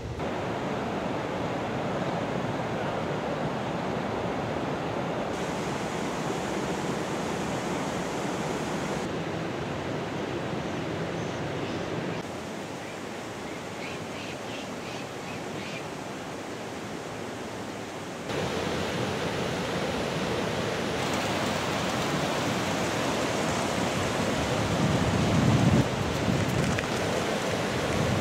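Steady rush of running water from a mountain river and its spray, an even hiss that steps up and down in level several times. A brief low rumble comes near the end.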